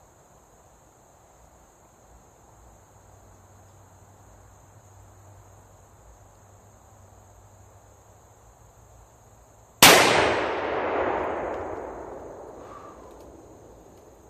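A single shot from a Smith & Wesson .500 Magnum revolver about ten seconds in, sudden and very loud, with a long rolling echo that dies away over several seconds. Before it, crickets chirp steadily.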